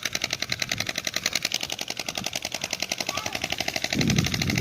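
Rapid, even clacking of bicycle spokes slapping a card taped to the frame, about a dozen clacks a second, the trick that makes a bicycle sound like a motor dirt bike.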